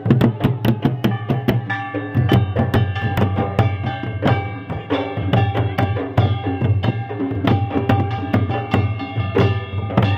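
Folk drums beaten with sticks in a fast, steady rhythm, with a pitched melody instrument holding notes over them: live traditional procession music.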